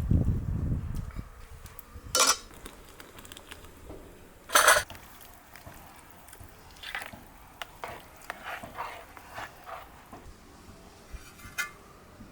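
Spoons and dishes: two loud short scrapes, then a run of lighter clicks and scrapes of utensils against bowls, and a ringing clink near the end.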